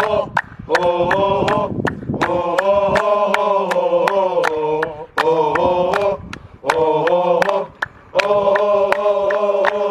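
A group of men chanting a football supporters' song in unison, with steady rhythmic hand-clapping.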